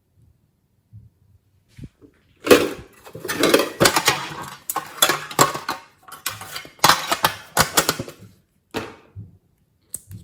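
Glossy slime being squished and worked by hand, giving bouts of dense wet clicks and crackles that start about two and a half seconds in and stop briefly a few times.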